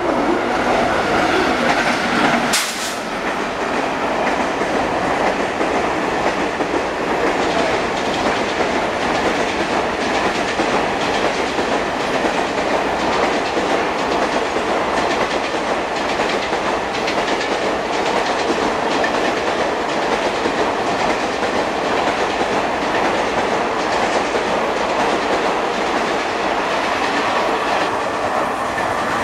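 Express passenger train behind an electric locomotive running through the station at speed, its coach wheels clattering over the rail joints in a steady clickety-clack. There is a single sharp crack about two and a half seconds in, and the noise eases a little near the end as the last coaches pass.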